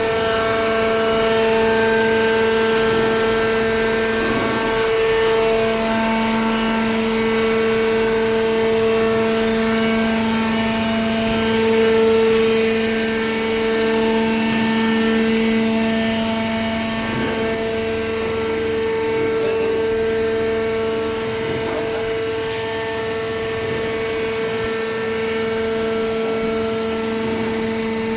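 Waste paper baler's hydraulic pump and motor running with a steady whining hum.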